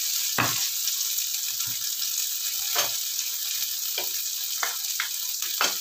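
Hot cooking oil sizzling steadily as food fries in a pan, with about six sharp clicks and knocks, the loudest shortly after the start and near the end.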